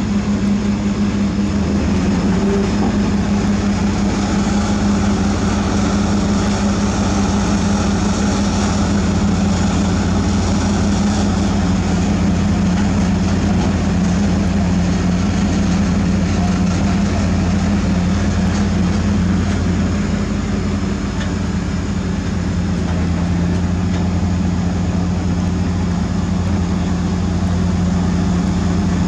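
Heavy diesel engine running steadily at constant speed, an even low hum with no revving.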